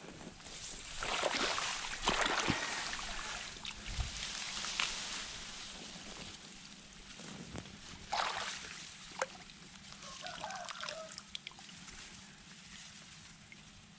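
Shallow muddy pond water splashing and sloshing in several bursts, with grass rustling, as a hand reaches into the water at the bank. The loudest bursts come about a second in and again about eight seconds in, with a few sharp clicks between.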